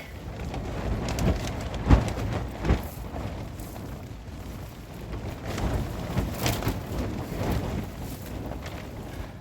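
Stormy wind buffeting the microphone over steady rain, with a few sharp knocks about two seconds in and again past the middle.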